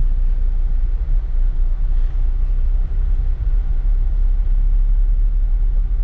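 Car on the move: steady low road and engine rumble.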